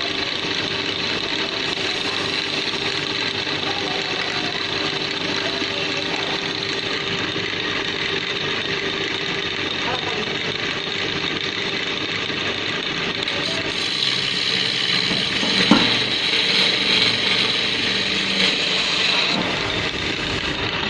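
Wood lathe running steadily with a constant motor hum. About fourteen seconds in, a turning tool starts cutting the spinning table leg, adding a rougher, scratchier cutting noise with a single knock shortly after.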